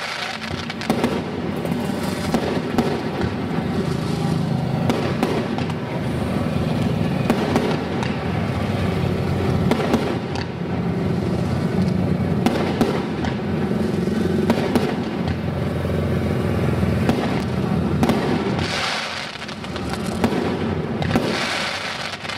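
Aerial fireworks display: shells bursting one after another in quick succession, their bangs running close together without a break, with a brief lull near the end.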